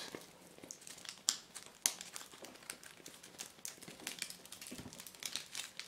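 Foil wrapper of a large Kinder chocolate egg being peeled off by hand, crinkling with many scattered sharp crackles.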